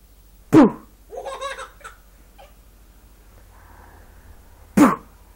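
Baby giggling in a short burst of laughter about a second in, answering a loud sudden call that falls steeply in pitch just before it. A second such falling call comes near the end.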